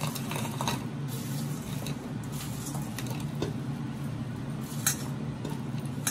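Handfuls of french fries being picked out of a stainless steel bowl and dropped into a plastic bowl: light rustling and small scattered clicks of fries and fingers against the metal, with one sharper click late on. A steady low hum runs underneath.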